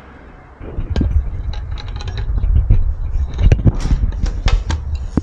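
Handling noise as small gilt picture frames are picked up and turned over above a glass display counter: a dense low rubbing rumble broken by many sharp clicks and knocks, starting about a second in.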